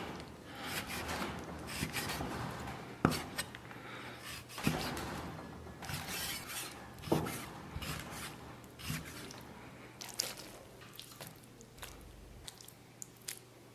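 Cleaver slicing raw pork liver into strips on a wooden chopping block: soft, wet slicing and scraping strokes, with a few sharp knocks of the blade against the board.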